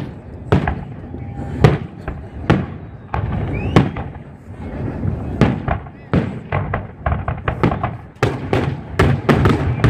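Aerial firework shells bursting, a few separate bangs about a second apart at first, then coming faster and closer together in the second half as more shells go off.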